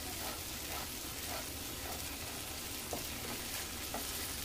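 Thick onion-tomato masala paste sizzling steadily in oil in a nonstick pan as a wooden spatula stirs it, with a few faint scrapes. The masala is in the last stage of bhuna frying, cooked down until nearly dry.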